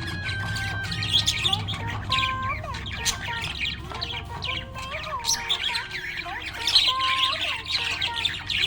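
Budgerigar chirping and chattering in rapid, continuous bursts of high twittering notes.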